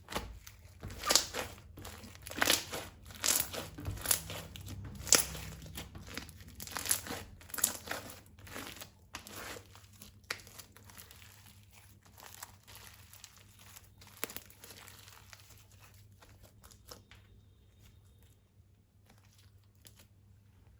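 Hand-worked slime crinkling and crackling in a run of dense squeezes for about the first ten seconds, then thinning to occasional faint clicks.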